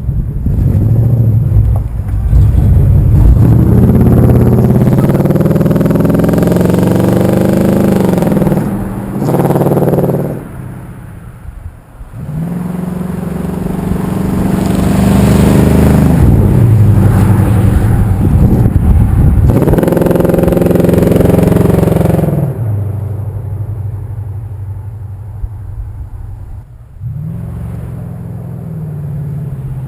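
1964 Pontiac Catalina's V8 engine running under throttle, its pitch rising and falling over two long loud pulls. It then drops to a lower, quieter, steadier run for the last third.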